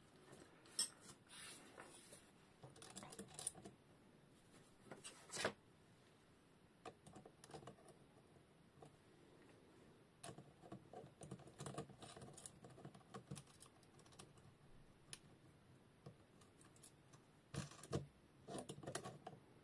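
Small metal parts of a knife-sharpening jig being handled and fitted: scattered clicks and clinks of a perforated steel plate, washers and nuts against the steel clamp, with one sharp click about a second in and a busier run of clicking near the end.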